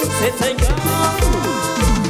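Live band music with keyboard, electric guitar, bass and a steady kick drum pulse at about two beats a second, with a run of falling gliding notes in the second half.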